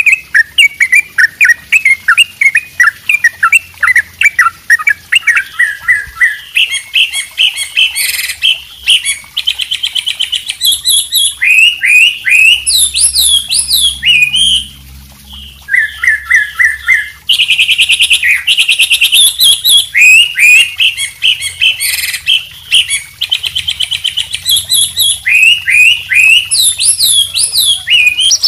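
Several songbirds singing over one another: white-rumped shama, wambi and yellow-vented bulbul. They give fast strings of down-slurred whistles, rattling trills and repeated high notes, with hardly a pause.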